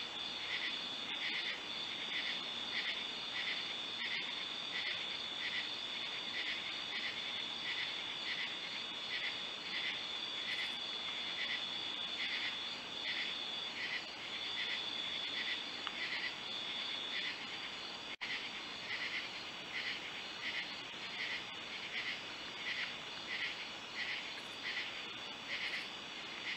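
Night insects calling: a steady high trill, with a second caller pulsing in a regular chirp about twice a second.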